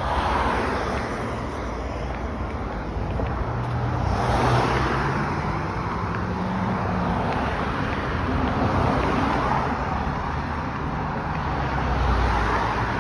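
Road traffic on a wet multi-lane road: cars passing one after another, the sound swelling and fading every few seconds.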